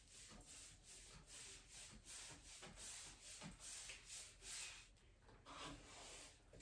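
Paint sponge rubbed back and forth over a wooden hutch, faint quick strokes about three a second, with a short pause near the end: a coat of paint being worked onto the wood.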